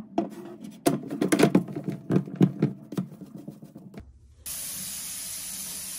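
Rigid PVC drain pipe and P-trap fittings being handled and pushed together, a run of light plastic knocks and clicks. About four and a half seconds in, a steady hiss starts abruptly and holds.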